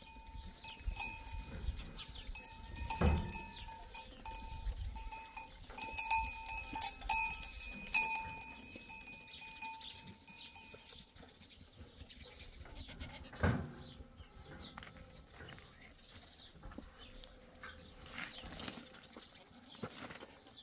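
Goat pen sounds: a metal livestock bell clanking over and over for the first ten seconds or so as the goats move, then stopping. Two thumps, about three seconds and about thirteen seconds in.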